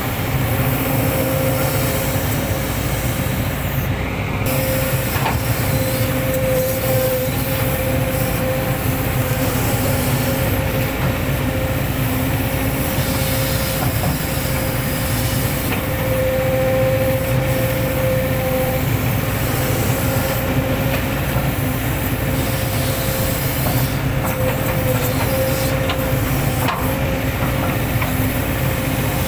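Hitachi hydraulic excavator working, its diesel engine running steadily under a constant whine, with a few faint clicks.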